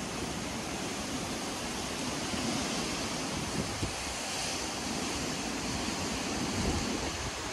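Hurricane wind and rain making a steady rushing noise, with gusts buffeting the microphone.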